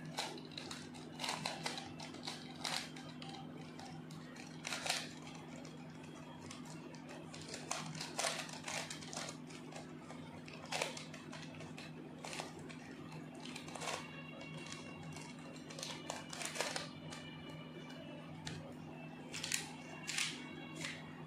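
Plastic twisty-puzzle cube being turned by hand: irregular clicks and rattles as its layers are twisted, over a steady low hum.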